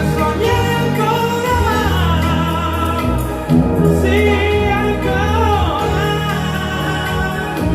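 Italian-language song, with a singer's voice gliding up and down over a full band, played back through an IKEA Eneby stereo speaker pair.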